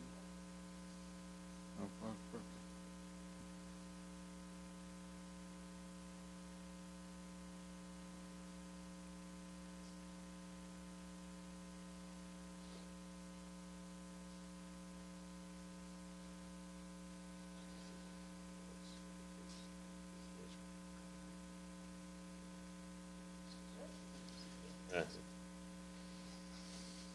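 Steady electrical mains hum, with a few faint knocks about two seconds in and again near the end.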